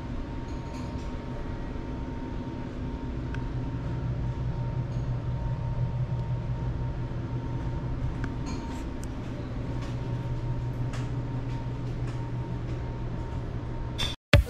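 Steady low mechanical rumble and hum with a faint steady whine and a few light clicks, stopping abruptly near the end.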